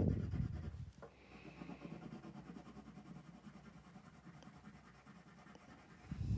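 Red coloured pencil shading on paper in quick back-and-forth strokes: a scratching that is loud for the first second, then faint and fast, with a short louder bump near the end.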